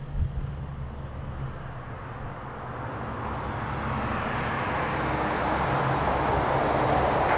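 Low rumbling hum with a thump at the start, then a rushing noise that swells steadily louder over the last few seconds.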